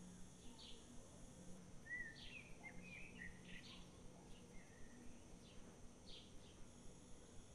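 Faint bird chirps repeating at intervals, with a short run of twittering about two seconds in, over a faint steady low hum.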